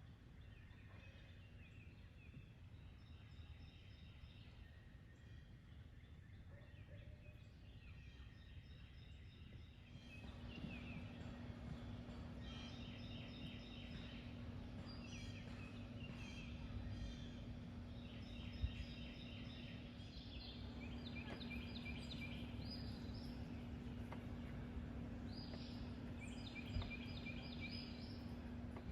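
Faint outdoor animal calls: short bursts of rapid chattering, each about a second long, repeating again and again. A steady low hum comes in about a third of the way through.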